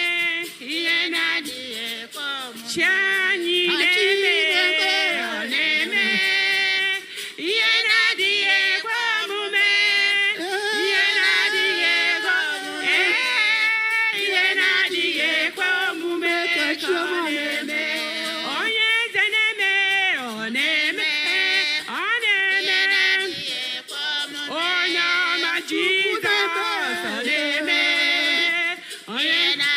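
Singing voices performing a song with music, the melody wavering and gliding.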